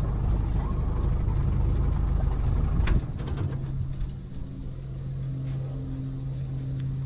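Outboard motor of a small aluminium boat running, then throttled back about three seconds in to a quieter, steady low hum as the boat slows to come in to the beach.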